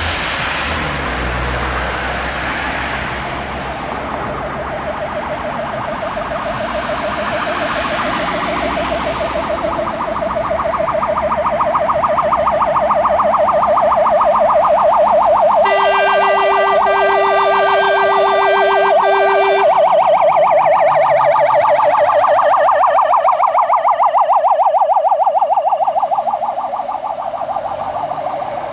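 Siren of a Scania G440 heavy fire engine, a fast warble that grows louder as the truck approaches, over low engine and traffic noise. About halfway through its horns sound in a few short blasts lasting about four seconds, and the siren drops in level near the end as the truck passes.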